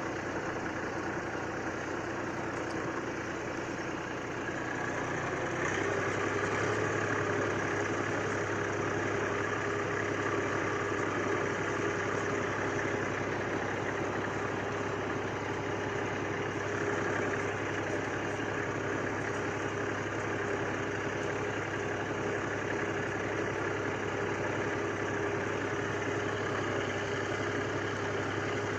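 IMT 539 tractor's three-cylinder diesel engine running steadily; about five and a half seconds in its note steps up and gets louder, then holds at the higher speed.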